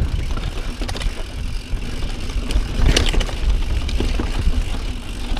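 Santa Cruz Bronson C carbon full-suspension mountain bike rolling fast down a dirt singletrack: a steady low rumble of tyres and wind on the microphone, with sharp rattles and knocks from the bike over rough ground, the loudest about three seconds in.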